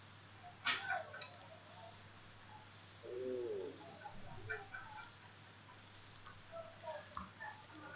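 Two sharp clicks about a second in, then a short, low, cooing call about three seconds in, with faint scattered chirps over a quiet background.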